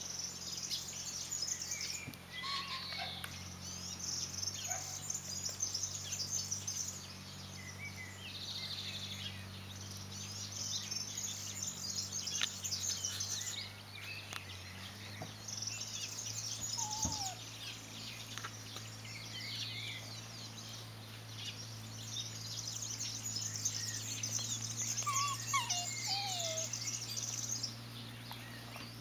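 Birds chirping and singing throughout, over a steady low hum, with a couple of short squeaky calls partway through.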